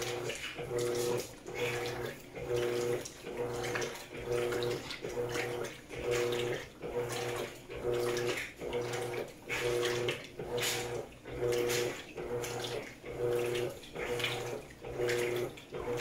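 Electrolux top-loading washing machine agitating a soaked king-size blanket in a full tub, at high water level without turbo. The motor hums in short, even strokes about every three-quarters of a second, each with a slosh and swish of water.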